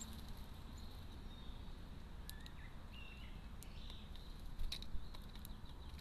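Great spotted woodpecker pecking into seed in a plastic feeding tray: scattered sharp taps and clicks, loudest in a short cluster about five seconds in, over a steady low hiss, with a few faint short chirps in the middle.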